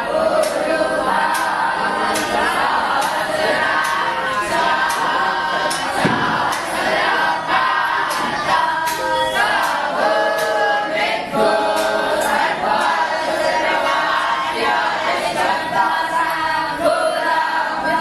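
A group of voices chanting together in unison, steady and unbroken.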